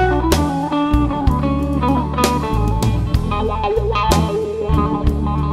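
Blues music: guitar over low bass notes and a drum kit beat.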